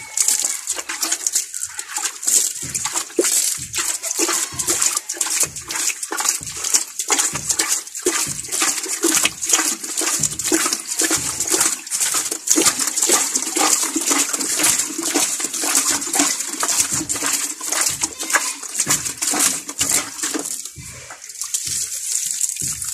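Water splashed by hand from a bucket onto a bed of damp sawdust, a dense, irregular patter of splashes.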